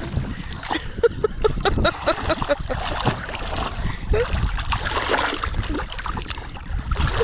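Water splashing and sloshing in a shallow river as people bathe and move about in it, in short irregular splashes, with faint brief voices in the background.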